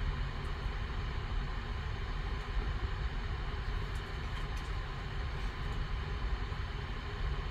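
Steady low background rumble, with a few faint light clicks about four seconds in from plastic card sleeves and cards being handled.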